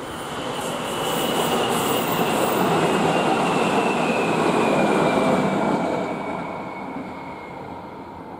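A JR Shikoku electric commuter train passing: its wheels run on the rails in a steady noise that swells to a peak in the middle and then fades as it goes by. A thin high tone above the noise slowly falls in pitch as the train passes.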